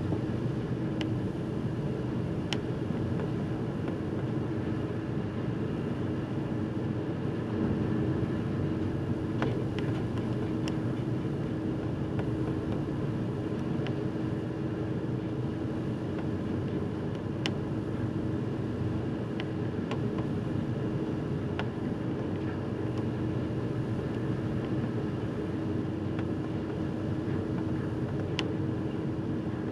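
A car ferry under way: a steady low rumble with a constant hum from the ship's engines and its hull through choppy water, heard from the open bow deck.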